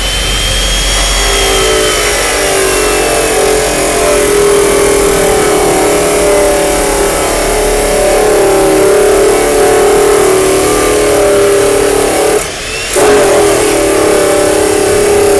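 Dekton CS2800CR belt-driven chop saw, its 355 mm abrasive cut-off wheel grinding through thick steel section, a loud steady grinding whine. It drops off briefly near the end and then bites back in.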